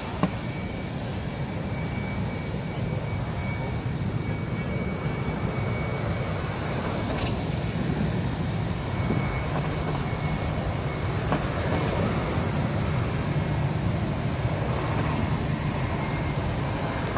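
Jet engines of a large four-engine military transport plane in low flight, a steady rumble that grows gradually louder as it passes, with a faint high whine over it in the first half.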